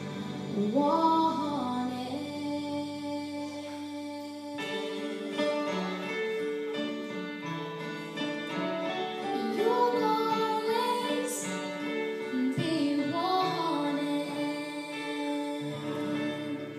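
A song sung over instrumental accompaniment during a sound check: a solo voice carries the wavering melody above held chords.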